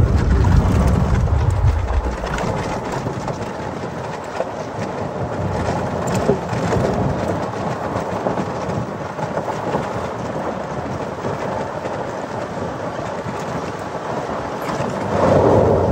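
Electric golf cart on a 48-volt lithium battery driving along a gravel and dirt road: a steady rumble of tyres rolling over the gravel, with wind rushing past.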